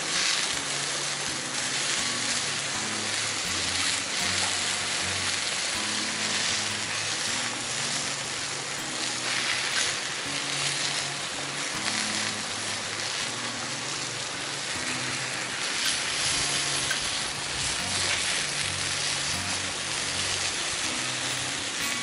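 Steak, asparagus and mushrooms frying in a black pan over a fire, a steady sizzle, with soft background music of low notes underneath.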